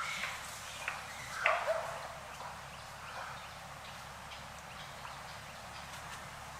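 An old monkey coughing: a few short, sharp coughs in the first two seconds, the loudest about one and a half seconds in, and a softer one a little later.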